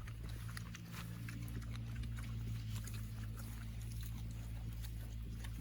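Hogs grunting in their pen, over a steady low hum and scattered light clicks.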